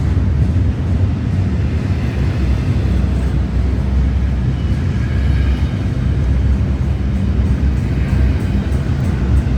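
Union Pacific freight train passing: a loud, steady, heavy low rumble.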